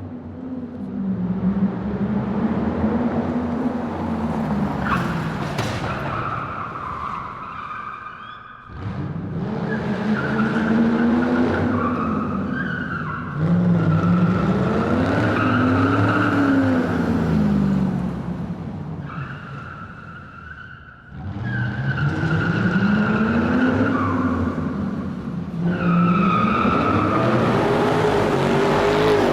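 Car tyres squealing continuously, like a car drifting, over an engine revving up and down. The squeal runs in several stretches, with brief drops in level about a third of the way in and again about two-thirds in.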